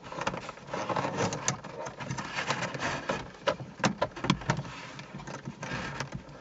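Hands working loose cables against plastic interior trim and the headliner, giving irregular rustling and scraping with sharp clicks and knocks, several of them close together around the middle.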